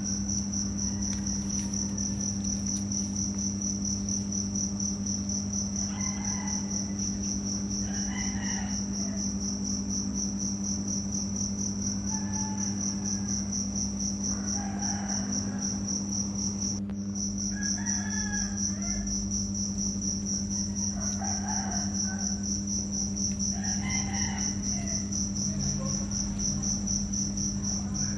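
A cricket chirping steadily at a high pitch, cutting out briefly about halfway through, over a steady low hum. From about six seconds in, faint short calls come every second or two.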